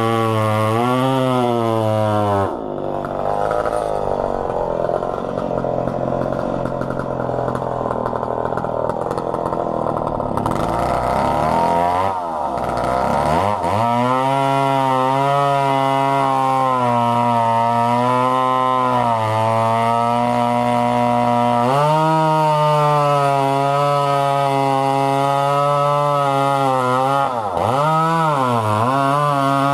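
McCulloch Pro Mac 700 two-stroke chainsaw running hard. A couple of seconds in, its engine note drops and turns rough as it works through a log under load. Around twelve seconds the revs fall sharply and climb again, then it runs steadily at high revs, with one more quick dip near the end.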